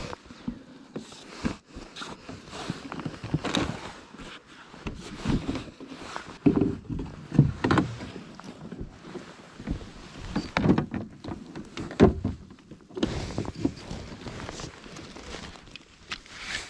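Gear being handled in a plastic kayak: irregular knocks and thunks as a fishing gear box, measuring board and fish grip are moved and set against the hull.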